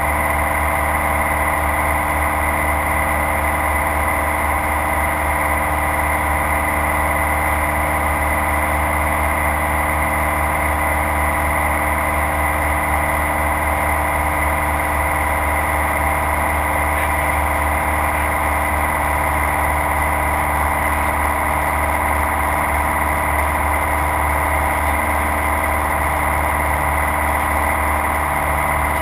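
Light aircraft's piston engine and propeller running steadily in flight, heard from inside the cockpit as an even, unchanging drone.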